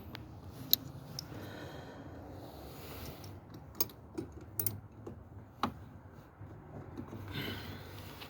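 A handful of sharp, irregular metallic clicks and clinks over a low steady rumble, the loudest under a second in.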